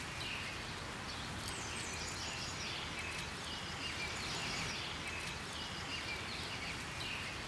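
Steady outdoor background noise with faint, high bird chirps repeating every second or so.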